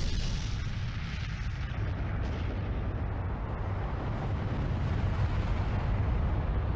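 A steady, deep rumbling roar with a hiss over it.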